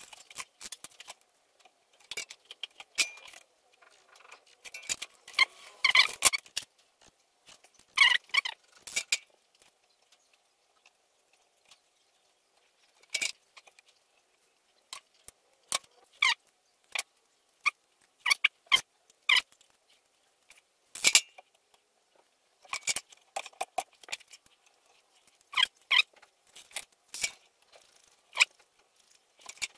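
Scattered small clicks, snips and rustles as thin hookup wires and small hand tools such as pliers are handled on a workbench. The sounds are short and irregular, with quiet gaps between them.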